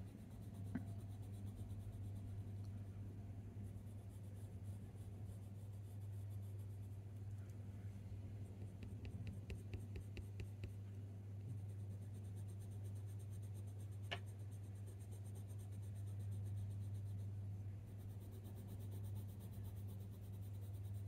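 Coloured pencil scratching faintly on hot-press watercolour paper in drawing strokes, over a steady low hum; a single small click about two-thirds of the way through.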